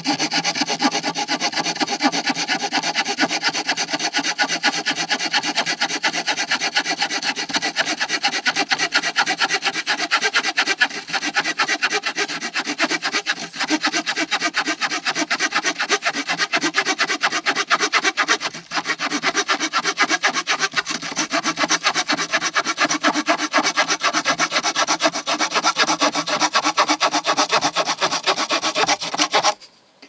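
Small saw blade of a Boker Tech Tool Carbon 4 multitool sawing through a wooden board with rapid, even back-and-forth strokes. The sound breaks off briefly a few times and stops just before the end, as the cut goes through.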